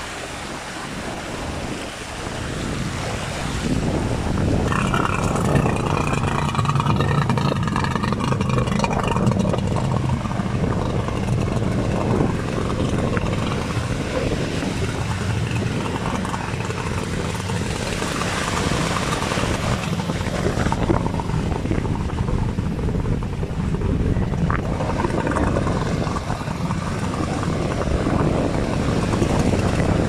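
Outboard engines of racing inflatable powerboats running, over wind and sea noise, louder from about four seconds in.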